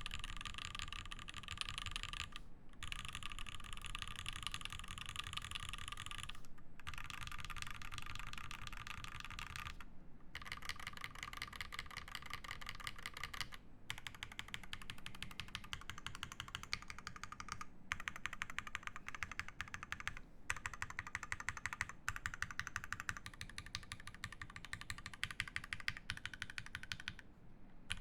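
Fast typing on a custom mechanical keyboard with lubed Alpaca linear switches in a brass plate and GMK keycaps: a dense, continuous run of keystrokes, broken by a few brief pauses.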